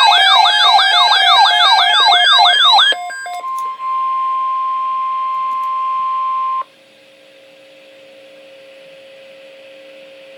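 Electronic siren tone sweeping upward over and over, about three times a second, cutting off about three seconds in. Then the steady single-pitch NOAA Weather Radio alert tone sounds for about three seconds. Faint radio hiss and hum follow.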